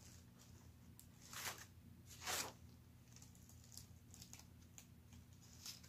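Paper and packaging being handled: two brief rustling swishes about a second and a half and two and a half seconds in, with a few light ticks and taps, over a faint low steady hum.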